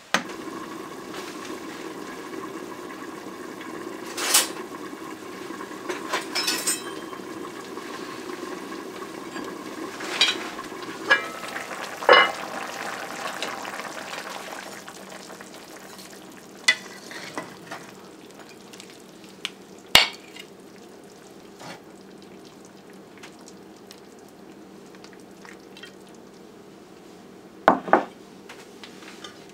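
Catfish soup bubbling in a metal pot, a steady hissing simmer that grows quieter about halfway through, with sharp clanks of a metal spoon against the pot every few seconds.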